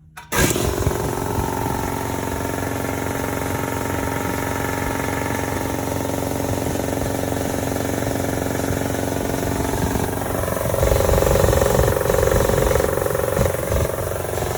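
Shop air compressor's oil-lubricated piston pump and motor starting suddenly and running steadily on its first run after an oil change with fresh synthetic compressor oil. About ten seconds in the sound shifts and grows louder for a few seconds.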